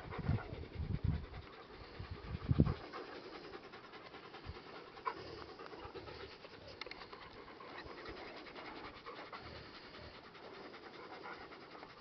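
Large black-and-tan guardian dog panting. A few dull low thumps come in the first three seconds, the loudest about two and a half seconds in.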